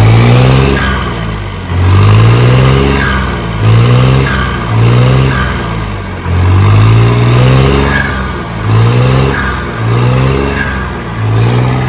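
New Holland 3630 tractor's diesel engine revved again and again, about eight quick throttle blips, each rising and falling in pitch. A short high whistle from the fitted turbo whistle sounds near the top of most revs; it only comes in above about 2000 rpm.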